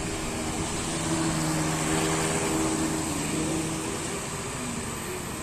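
Two walk-behind power tillers running with their small engines droning steadily as the rotary tines churn soil. A humming engine tone swells between about one and four seconds in.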